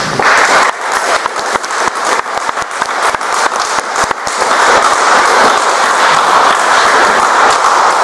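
Audience applauding: many hands clapping in a dense patter that grows louder about halfway through.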